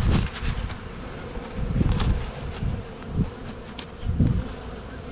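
Honeybees buzzing around an open hive, a steady hum, with a few brief low rumbles.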